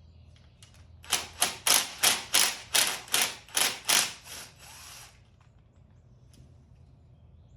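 About ten sharp hammer blows on metal in quick succession, roughly three a second, each ringing briefly; they stop about halfway through.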